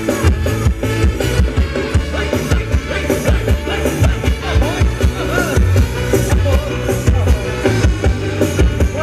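Live band playing Thai ramwong dance music, with a steady drum beat and heavy bass.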